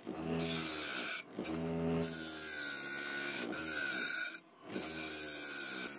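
A bench-mounted wire wheel scrubbing rust off the steel frame of an antique lantern: a steady rasping hiss over the motor's hum, which wavers in pitch as the work is pressed against the wheel. The sound breaks off briefly twice, about a second in and again near the middle.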